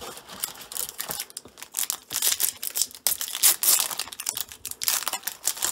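A baseball card pack's crinkly wrapper being torn open and handled, giving a dense run of sharp crackles.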